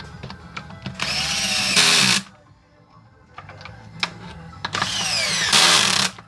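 Hilti TE 76 rotary hammer run twice in short bursts of about a second each, the motor spinning up and winding down each time: a brief test run after reassembly. Small handling clicks come between the bursts.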